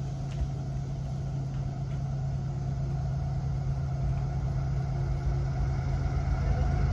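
Diesel locomotive engines of an approaching Florida East Coast Railway train: a steady low hum that grows slowly louder.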